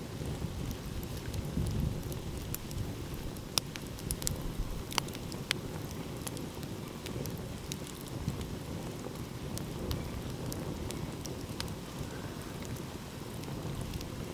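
Wood fire crackling, with irregular sharp pops and snaps, the loudest few between about three and five seconds in. A steady low rumble of ocean surf runs underneath.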